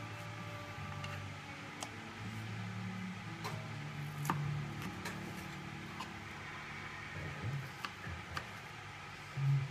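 Kitchen knife cutting peeled lemon on a wooden cutting board: scattered sharp clicks as the blade meets the board, over a low steady hum. A dull thump near the end is the loudest sound.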